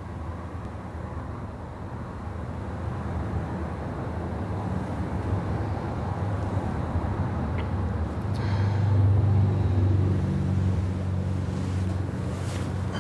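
Low steady rumble of distant road traffic, swelling about eight to ten seconds in, with a few faint clicks.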